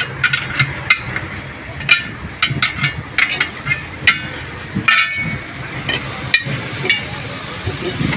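Steel tyre levers clinking and knocking against a steel wheel rim as a tyre bead is worked over the rim by hand. Sharp metallic clinks come at irregular intervals, with a short rattle about five seconds in.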